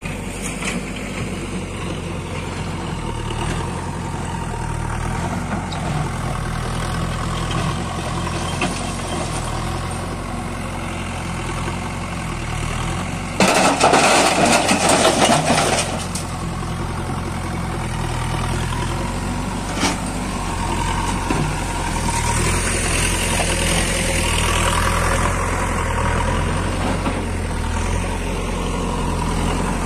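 Diesel engines of a tractor and a JCB backhoe loader running steadily. About 13 seconds in, a loud clattering crash lasting two or three seconds as rock is tipped from the loader's bucket into the tractor trolley.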